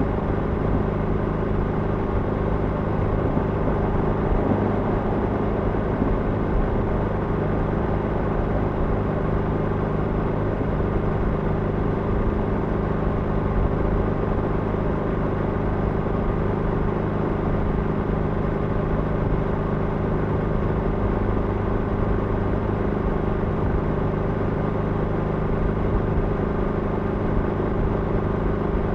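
Motorcycle engine running at a steady cruise of about 80 km/h in a road tunnel, holding an even pitch, over a constant rush of wind and road noise.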